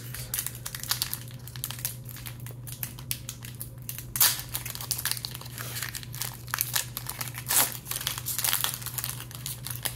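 Foil Pokémon card booster pack wrapper crinkling as it is handled and torn open by hand, with two louder rips about four seconds and seven and a half seconds in.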